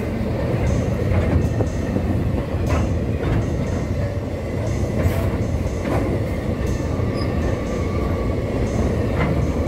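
Empty open-top freight wagons rolling past close by: a steady, loud rumble of steel wheels on rail with irregular clanks and knocks from the wagons.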